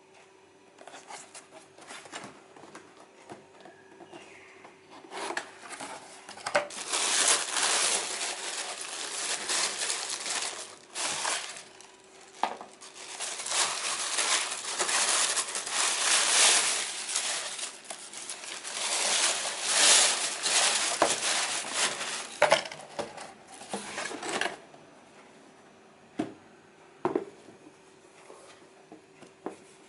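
White tissue paper crinkling and rustling as hands pull the wrapping out of a cardboard shoe box, loudest through the middle stretch. Near the end a couple of light knocks as the box and shoe are handled.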